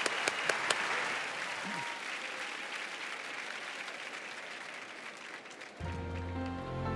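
Theatre audience applauding, the clapping slowly dying away. Near the end, soft music with sustained low notes begins.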